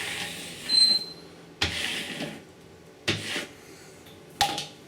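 Cleaning a wall with a Kärcher SC3 steam cleaner and squeegee: four short swishing strokes about a second apart, the first with a brief high squeak.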